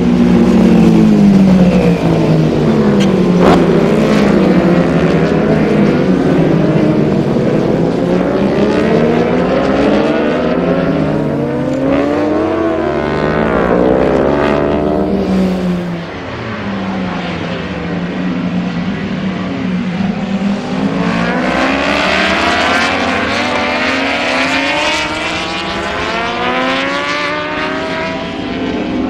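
Several racing motorcycles running at high revs as they pass, their engine notes overlapping and repeatedly rising and falling in pitch, with a brief dip in loudness partway through.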